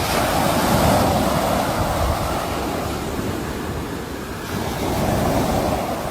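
Sea waves surging and washing in, a rushing swell of surf at the start and another about five seconds in.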